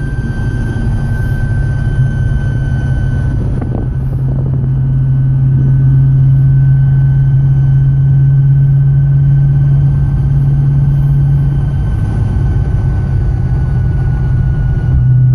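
Cadillac CTS-V drivetrain noise while running: a steady low drone with a thin steady whine above it, which the owner takes for a failing driveshaft carrier bearing.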